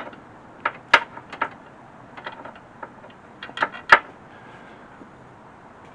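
Scattered metallic clicks and clinks of hand tools against engine parts. There are several in the first second and a half and two sharper ones nearly four seconds in.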